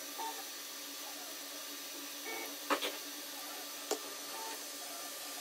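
Kingroon KP3S 3D printer running auto bed levelling with its 3D Touch probe: a faint steady whir of motors and fan as the head and bed move between probe points, with two sharp clicks, one near the middle and another about a second later.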